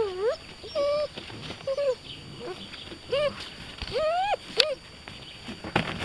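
Young Beauceron puppies yelping and whining in play, a string of about seven short high cries that rise and fall in pitch, with a couple of sharp knocks in the second half.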